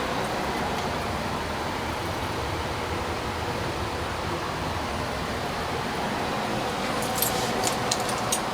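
Dave Lennox Signature Collection 80% gas furnace running: a steady rush of air from its blower. A few light clicks near the end.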